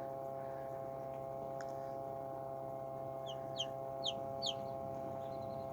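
A few short, high, falling peeps from a baby chick, about three and a half seconds in, over a steady electrical hum from the incubator.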